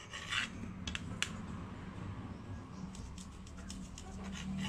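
Kitchen knife cutting the crusts off slices of white sandwich bread on a ceramic plate: a run of short crisp cutting and scraping strokes, bunched near the start and again near the end.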